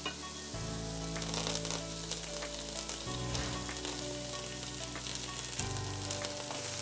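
Chopped garlic sizzling in hot olive oil in a nonstick frying pan as chopped fresh coriander is tipped in. Soft background music with sustained low notes plays underneath.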